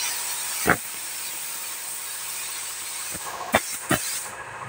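A spray gun's air hiss trails off at the start, leaving a steady faint hiss. Over it come a dull thump just under a second in and two sharp knocks about half a second apart near the end, as the painter shifts his footing on a wooden scaffold plank.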